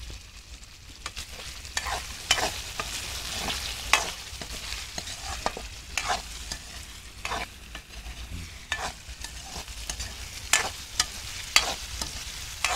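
Metal ladle scraping and clinking against a metal wok, irregular clicks every half second to a second or so, while sliced tomatoes, onion and garlic sauté in oil with a steady sizzle.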